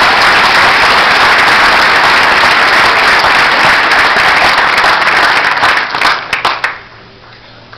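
Audience applauding loudly, a dense clapping that breaks up into a few last separate claps about six seconds in and then stops.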